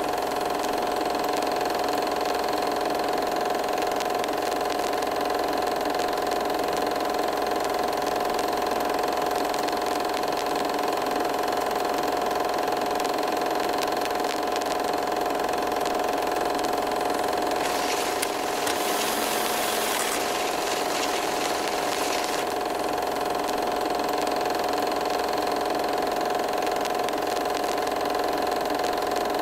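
A steady droning hum made of several held tones, with a burst of high hiss from about eighteen to twenty-two seconds in.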